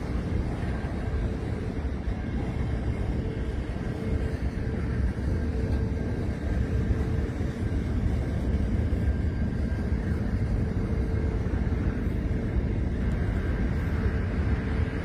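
Freight train's container wagons rolling past: a steady rumble of steel wheels on the rails, with a thin steady whine over it.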